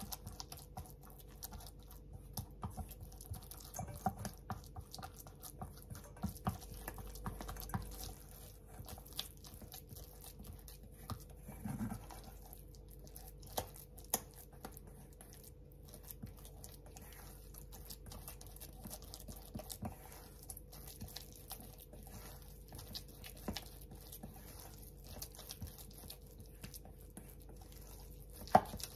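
A spatula mixing mashed silken tofu in a stainless steel bowl: soft wet scraping and irregular light taps against the metal, with a sharper knock near the end, over a faint steady hum.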